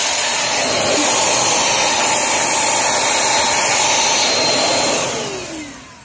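Britânia BAS 1010B 1250 W 2-in-1 vacuum cleaner running at full suction with its crevice nozzle, a steady rush of air with a motor whine. About five seconds in it is switched off, and the motor winds down with falling pitch.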